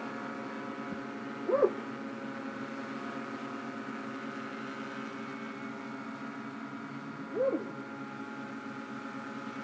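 RCTimer S800 hexacopter hovering: six brushless motors spinning 15-inch carbon-fibre props make a steady hum of many held tones. Two short calls, each rising and falling in pitch, stand out about a second and a half and seven and a half seconds in.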